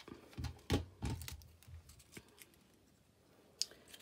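Handling noises on a craft table: a few low knocks and clicks in the first second and a half as a Bosch Gluey hot glue pen is set down, then faint rustles of paper flowers being pressed into place, with one sharp click near the end.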